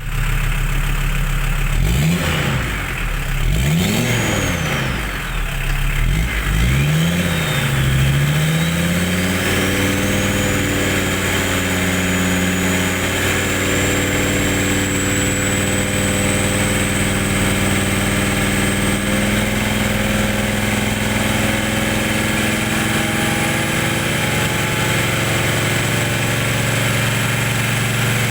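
Turbocharged engine running on an open exhaust pipe: revved three times in the first eight seconds or so, then held steady, with a high turbo whistle that climbs slowly in pitch.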